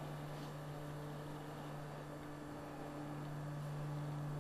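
A steady low hum with faint hiss, electrical in character, like mains hum or equipment noise picked up by the recording.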